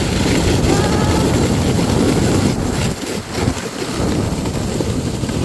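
Sled sliding fast down packed snow, a loud steady scraping rush mixed with wind buffeting the microphone, easing a little about three seconds in as the run slows.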